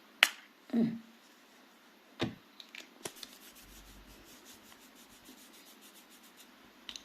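A small perfume sample atomiser sprayed once onto the hand: a short, sharp spritz just after the start. It is followed by a couple of light knocks and ticks from handling the little bottle, then faint rapid rubbing.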